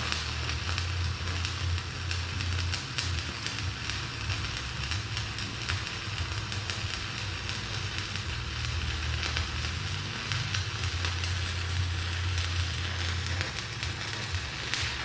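Stick welding arc crackling and sizzling steadily, over a low hum that swells and fades.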